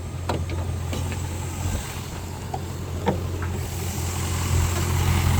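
Holden HSV Clubsport R8's 5.7-litre LS1 V8 idling steadily, with a few short clicks and knocks over it.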